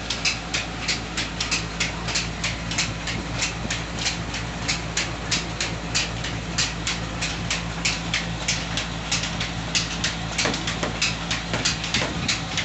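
A 30-inch stone flour mill (atta chakki) grinding, driven by a 25 HP electric motor: a steady low hum with rapid, regular clacking at about three to four clicks a second.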